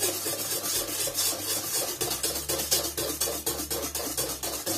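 Kefir batter being stirred by hand in a stainless steel mixing bowl: a utensil scraping against the metal in quick, even strokes, several a second.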